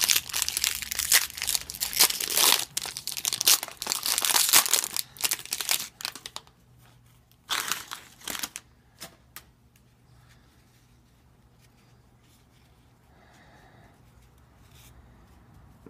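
Foil trading-card pack wrapper being torn open and crinkled for about six seconds, with another short crinkle about eight seconds in. After that, only faint handling of the stack of cards.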